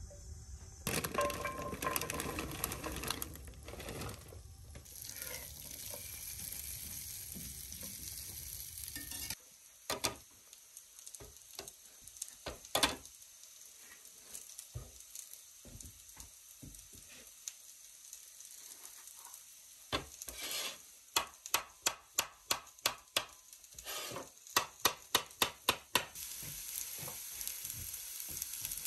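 Butter sizzling in a cast-iron skillet and stirred with a metal spatula; the frying hiss cuts off suddenly about nine seconds in. Scattered sharp knocks follow, then quick runs of taps at two to three a second, and diced potatoes sizzle in the skillet again near the end.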